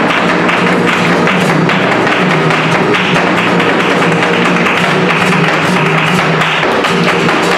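Live flamenco: a dancer's rapid zapateado footwork and hand-clapping (palmas) striking fast over flamenco guitar.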